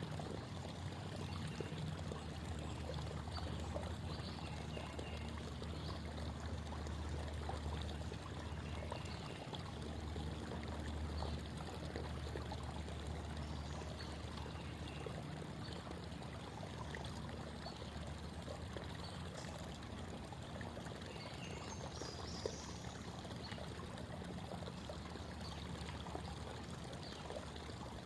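Creek water babbling steadily over rocks, an even rushing and trickling with a low rumble beneath.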